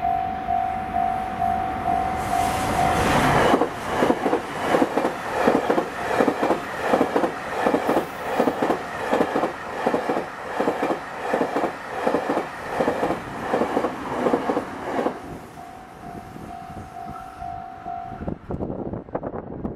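A Japanese level-crossing alarm rings in a steady repeating ding. Then the JR Freight M250 series Super Rail Cargo 16-car electric freight train passes at speed, its wheels clattering rhythmically over the rail joints for about eleven seconds. After the train clears, the crossing alarm is heard again briefly before it stops.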